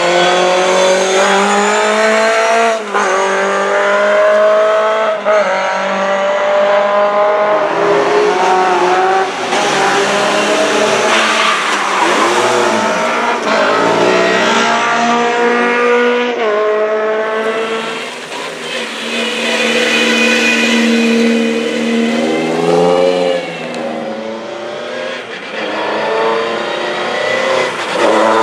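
Classic Lada rally cars' engines revving hard, the pitch climbing and then dropping sharply at each gear change, one car after another.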